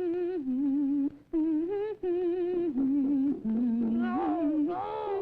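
A voice humming a slow tune: held, wavering notes that step up and down, with a swoop up and down in pitch near the end.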